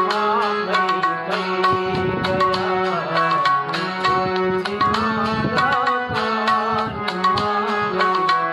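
Instrumental bhajan music: tabla beating a steady rhythm under held harmonium notes and a wavering melody line.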